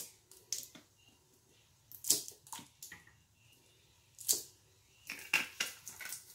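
Plastic squeeze bottle of barbecue sauce being squeezed: a dozen or so short squirts and crackles of the plastic in uneven bursts as the sauce is drizzled out.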